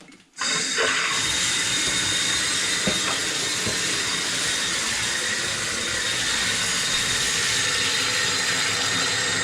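Tap water turned on about half a second in and running hard into a 5-gallon bucket, a steady rushing hiss; the flow is turned up high.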